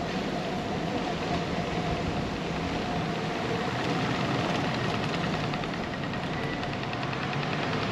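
Street noise heard from a moving bicycle: a steady rush of rolling and passing traffic with a faint engine hum. About five seconds in, a fast, even ticking starts and keeps going.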